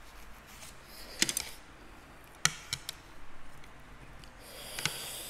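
Table eating sounds: a handful of sharp, spaced-out clicks of wooden chopsticks against a plate, with a short hiss near the end.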